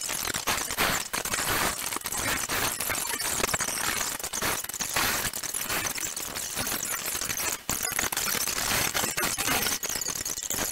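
Coloured pencil scratching on drawing paper in quick, irregular short strokes.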